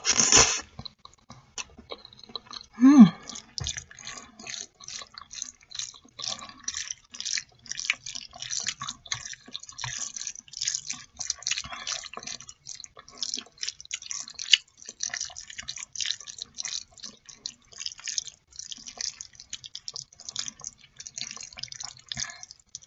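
Close-up mouth sounds of a person eating black bean noodles (jjajangmyeon): a loud slurp of noodles at the start, a short falling hum about three seconds in, then steady wet chewing and lip-smacking clicks.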